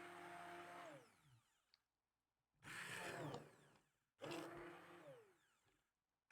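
Electric blender puréeing pumpkin soup in three short pulses: the motor winds down with falling pitch about a second in, runs again briefly and stops sharply, then starts once more and spins down.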